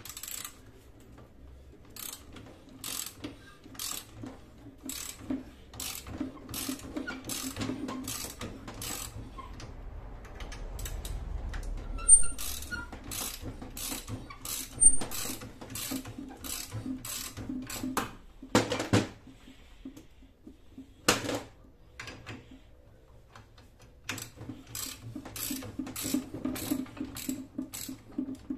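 Ratchet wrench clicking as it backs off the threaded rods of a coil-spring compressor, releasing the spring onto a new front strut. The clicks come in runs of about one to two a second, with two louder knocks in the second half.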